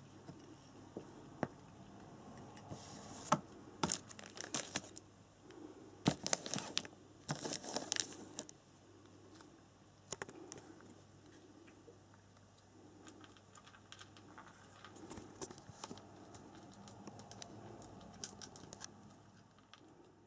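Handling noise: crinkling and rustling with scattered sharp clicks, busiest about three to nine seconds in, then quieter light tapping.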